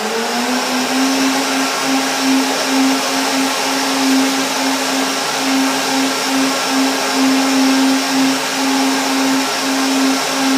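High-powered countertop blender running at full speed, blending a thick green smoothie of spinach, banana and coconut milk. Its motor comes up to speed in the first half-second and then holds a steady pitch.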